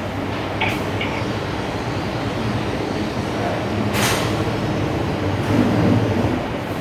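A steady low rumble of background noise, with a couple of short clicks about a second in and a brief rustling noise about four seconds in.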